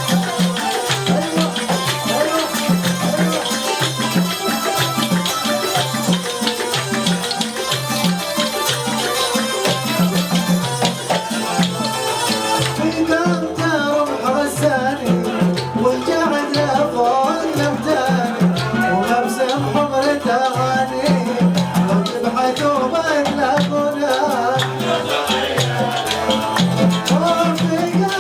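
Arabic wedding music played live: a steady percussion beat under a melodic line. About halfway through, the bright top end thins out and a wavering melody stands out more.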